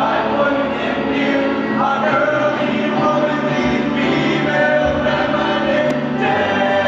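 Male vocal ensemble singing together in harmony, holding long chords.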